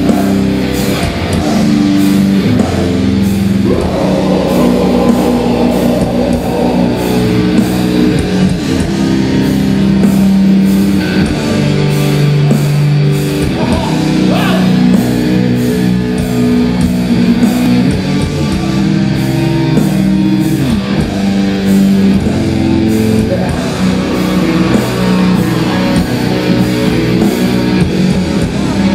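Death metal band playing live: heavily distorted electric guitars and bass over drums, with cymbal hits about twice a second.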